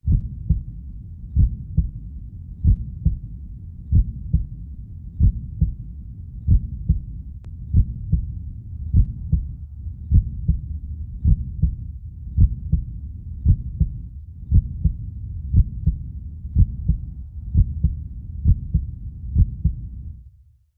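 Slow heartbeat sound effect: a double thump about every second and a quarter over a low, steady rumble, fading out near the end.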